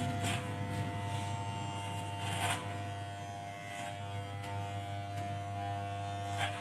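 Electric hair clipper buzzing steadily.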